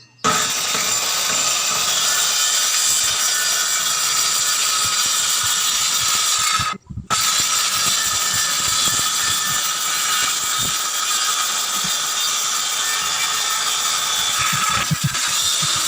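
Electric power tool running steadily as it cuts wood, breaking off briefly about seven seconds in.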